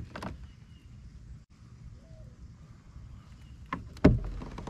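Quiet outdoor ambience with a few faint bird chirps and a low cooing call. Near the end comes a click, then a sharp knock with a brief low thump after it.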